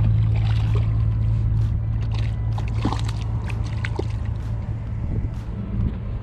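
A steady low hum, with scattered short splashes and clicks as a hooked spotted seatrout thrashes at the water's surface while being reeled in.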